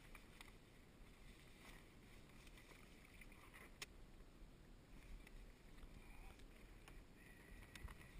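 Near silence: faint low wind and water sounds around a kayak, with a few light clicks and one sharper tick about four seconds in.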